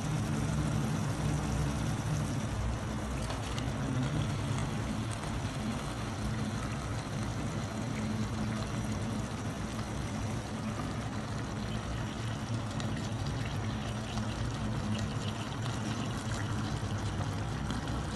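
Steady hiss of a pot of curry masala cooking on the stove in an aluminium pot, with a liquid trickling, bubbling quality and no sharp knocks.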